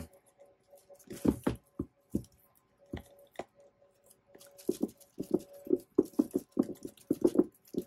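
Plastic shrink wrap on a boxed iPad crinkling and crackling in short, irregular bursts as fingers press, pick and pull at it to get it off the box.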